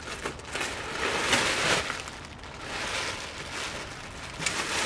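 Plastic wrapping crinkling and rustling as a bagged synthetic winch rope is pulled out of its box, loudest about a second and a half in.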